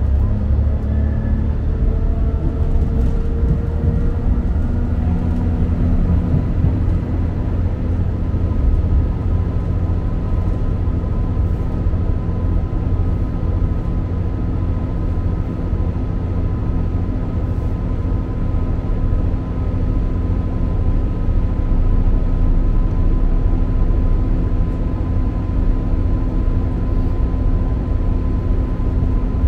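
Interior sound of a diesel multiple-unit passenger train under way: a steady low rumble of wheels on track and running gear, with the engine and transmission whine rising in pitch over the first few seconds as the train speeds up, then settling into a steady whine at cruising speed.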